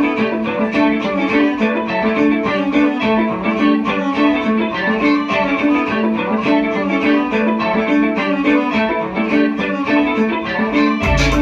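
Band music: a rapidly repeating plucked-string figure, guitar-like, plays alone without bass or drums. The bass and drums come back in just before the end.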